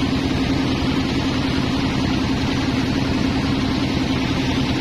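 Sawmill band saw machinery running steadily, a constant hum with no change in pitch or level.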